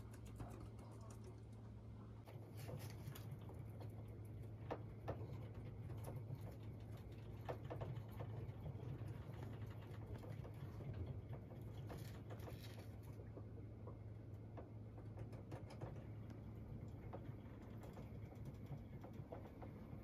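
Faint, scattered light clicks and rustles of hamsters scrabbling and moving about in plastic cages and wood-shaving bedding, over a steady low hum.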